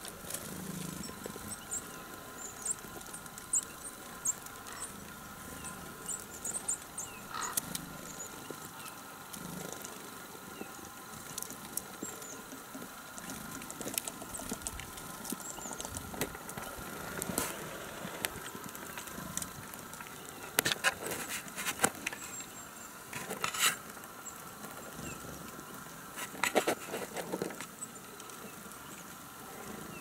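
Small tits feeding at winter feeders: brief high, thin call notes, mostly in the first few seconds, and scattered sharp clicks and taps of pecking, the loudest of them in the second half. A faint steady hum runs underneath.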